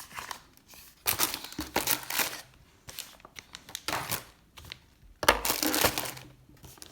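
Gift packaging crinkling as it is handled and pulled open, in noisy bursts: one about a second in, a short one around four seconds, and the loudest stretch just past five seconds.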